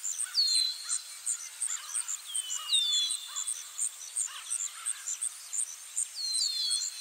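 Summer forest ambience: insects chirping in a steady high rhythm of several pulses a second, with short falling bird whistles, one early, a pair around three seconds in and a cluster near the end.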